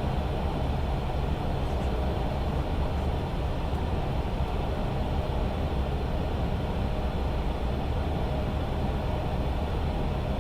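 Steady flight-deck noise of an Airbus A320 on approach: a constant rush of airflow with a deep engine and air-conditioning rumble and a faint steady tone above it.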